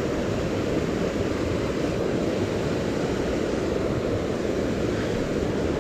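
Steady rushing of a fast mountain creek.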